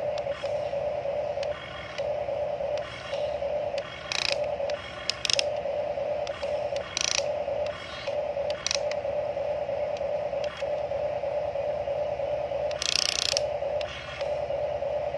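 Huina RC toy excavator's small electric motors and gearboxes whining, stopping and starting again and again as the arm and bucket are worked, with a few short rattling bursts, the loudest near the end.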